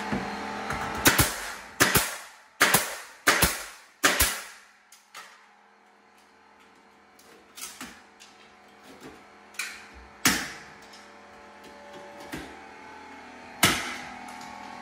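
Pneumatic nail gun firing through the door jamb: a quick run of sharp shots, several in close pairs, over the first four seconds, then a few lighter knocks and two more shots later on, each ringing briefly in the bare room.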